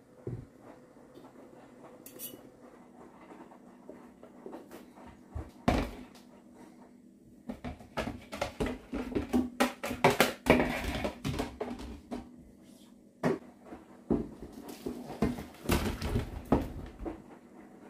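Dishes, pots and cutlery clattering as they are handled and put away in a kitchen, with irregular clinks and knocks that come in busier clusters in the middle and near the end.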